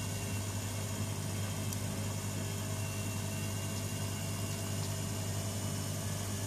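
AEG Lavamat 6410 washing machine running with a steady, even hum.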